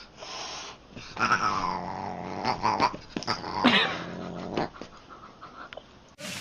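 A domestic animal's drawn-out calls, several in a row, wavering and bending in pitch, fading out about five seconds in.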